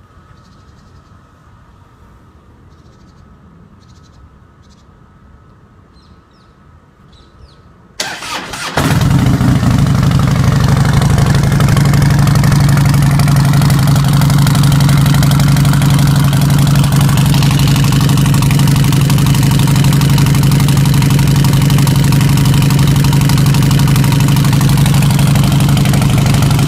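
Harley-Davidson Softail Heritage Classic V-twin with a Samson True Duals Mini Cholo full exhaust: faint at first, then the starter cranks briefly about eight seconds in and the engine fires and settles into a loud, steady idle through the open duals.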